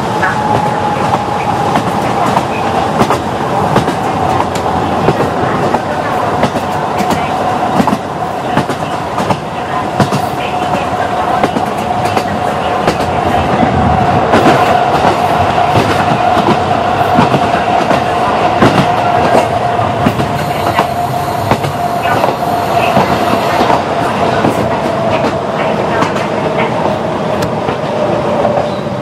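KiHa 40 diesel railcar running, its wheels clacking over rail joints, with a steady whine that slowly falls in pitch.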